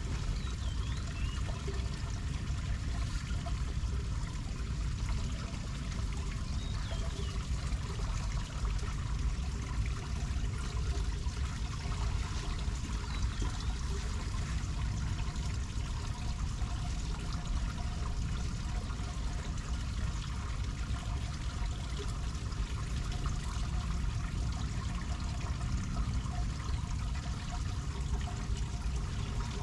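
Floodwater trickling and pouring steadily down through a storm drain grate as the leaves blocking it are cleared, the drain beginning to take the standing water.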